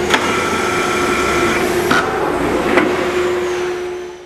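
A clamp carrier's hydraulic power unit hums steadily. With a click, the hydraulic tightening gun runs a clamp screw with a higher whine for about a second and a half, and a sharp clack follows about two seconds in. The sound fades out at the very end.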